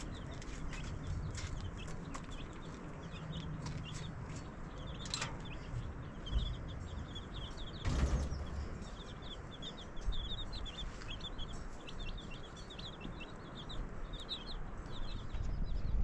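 Chicks peeping: many short, quick high-pitched chirps repeating, busiest in the second half. A single thump about halfway through.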